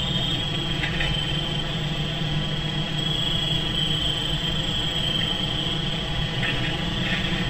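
Steady background hiss with a low hum and a constant high-pitched whine, broken by a few faint short sounds.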